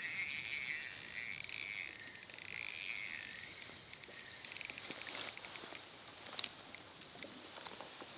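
Fishing reel being cranked: a whirring that wavers with each turn of the handle, stopping about three and a half seconds in, followed by scattered light clicks.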